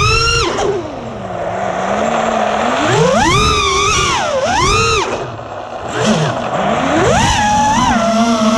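FPV quadcopter's brushless motors whining, the pitch swooping up and down repeatedly as the throttle is punched and cut. The whine drops low and quieter about a second in and again around five seconds in, then climbs back.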